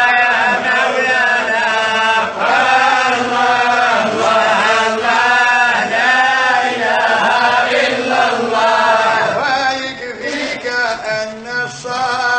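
Voices chanting a slow devotional melody in long held notes that bend slowly in pitch. Near the end the notes break into shorter phrases.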